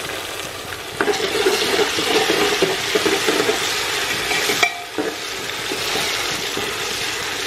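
Sliced onions with ginger-garlic paste frying in hot oil in an aluminium pressure-cooker pot, a steady sizzle, while a metal ladle stirs and scrapes through them. The sizzle jumps louder about a second in.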